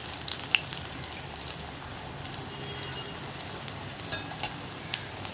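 Hot oil sizzling steadily with many scattered crackling pops as bread-and-egg snacks deep-fry in a kadai and are rolled over with a wire skimmer.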